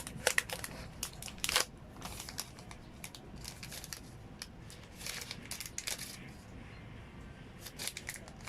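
Smartphone packaging being handled: plastic wrapping crinkling and rustling with sharp clicks, in bunches near the start, about five seconds in, and near the end.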